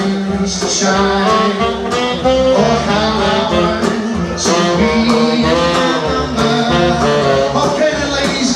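New Orleans-style jazz band playing, with saxophone and brass carrying the tune over a steady bass beat.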